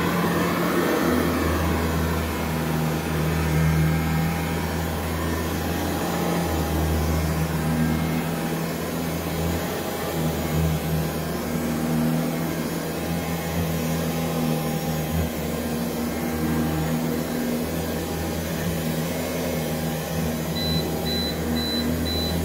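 Old upright vacuum cleaner motor running steadily while pushed back and forth over carpet, powered from an APC BVN900M1 battery backup running on battery. Near the end the battery backup starts beeping in a quick, even series of short high beeps, an alarm that it doesn't like the load.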